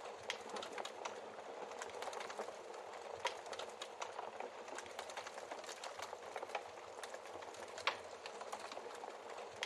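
Wood fire crackling in a fireplace: a steady soft hiss full of small irregular snaps, with three louder pops, shortly after the start, a little after three seconds and near eight seconds.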